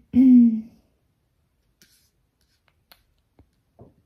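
A woman's short closed-mouth hum, falling in pitch, then a few faint taps on a phone as she searches her messages: four soft clicks spread over the next three seconds.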